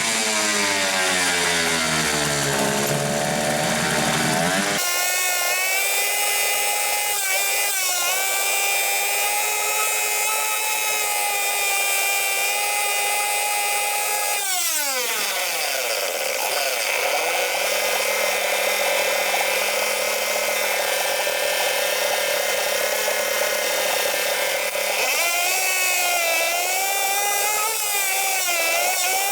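Freshly rebuilt Hangkai 6 hp two-stroke outboard motor running. Its revs climb at the start, hold high, drop about halfway through to a lower steady speed, then rise and waver again near the end.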